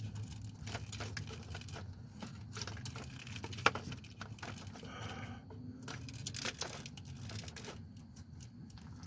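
Irregular light clicks, clinks and small knocks of hand tools and metal parts being handled while working on a car's alternator mounting, with a faint steady low hum underneath.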